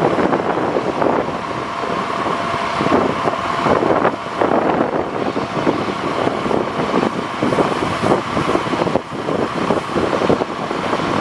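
Strong wind buffeting the microphone over the running International DT466 diesel of a bucket truck, whose hydraulics are raising the Altec aerial boom. The noise is loud and continuous with a rapid, uneven flutter, and a faint steady whine underneath.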